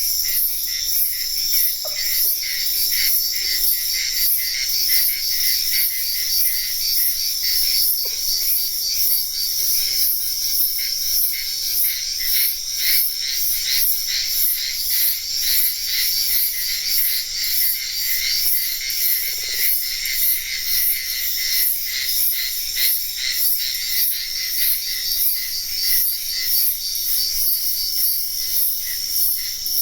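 Night chorus of insects and frogs: a high, evenly pulsing insect chorus over steady trilling, with a few faint, short lower calls here and there.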